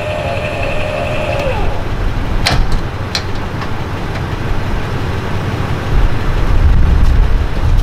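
A motor vehicle running with a low rumble. A steady whine slides down in pitch and stops about a second and a half in, and there are a couple of sharp clicks soon after.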